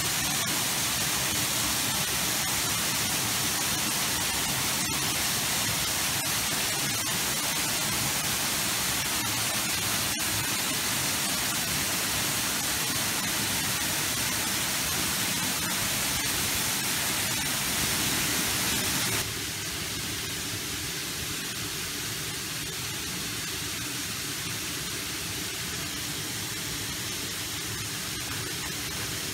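Steady rush of water from a small waterfall splashing onto rocks. About two-thirds of the way through it drops abruptly to a quieter hiss.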